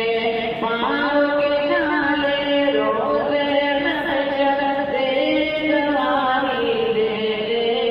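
A solo voice singing a nazam, an Urdu poem chanted in long held notes that bend and slide between pitches.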